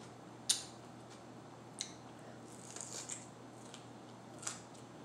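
Crisp crunches of a raw yellow mini sweet pepper being bitten and chewed close to the microphone: a sharp crunch about half a second in, the loudest, then a few more spread over the following four seconds.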